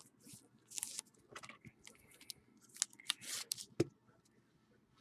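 Trading cards being handled: a scatter of small clicks and short papery swishes, with a sharper click nearly four seconds in.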